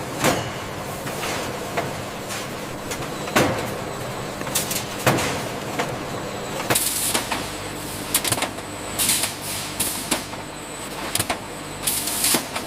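Flour-mill machinery running steadily with a low hum, broken by irregular clicks and knocks and, later on, several short bursts of hissing.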